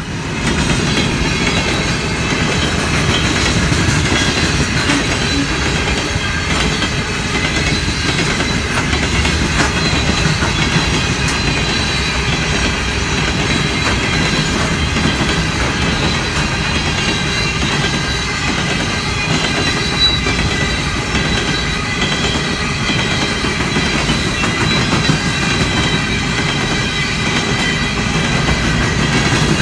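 BNSF ballast train rolling past close by: a diesel locomotive at the start, then ballast hopper cars. The wheels make a steady rumble on the rails, with clicking over rail joints and a faint steady high ring from the wheels.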